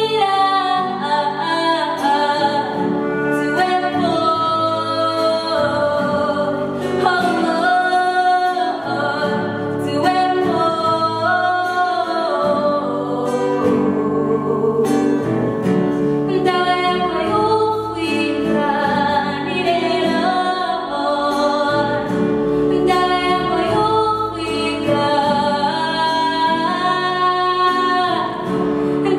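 Live vocal music: a woman singing lead with other voices joining, over sustained instrumental accompaniment, continuous throughout.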